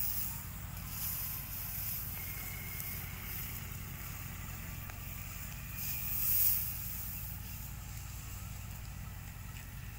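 Dry cut wheat stalks rustling as armfuls are gathered and piled into a sheaf, loudest about six seconds in, over a steady low rumble.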